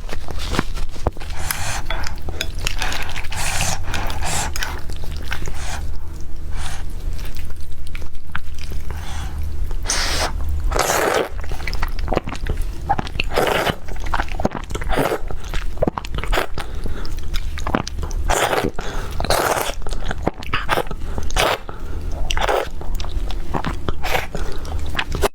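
Close-miked eating: a person biting and chewing food in irregular mouthfuls, over a steady low hum.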